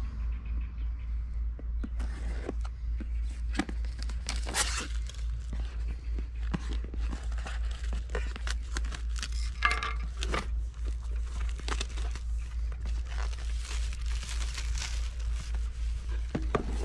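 Clear plastic shrink-wrap being slit and peeled off a cardboard product box: crinkling and tearing with scattered scratches and clicks, over a steady low hum.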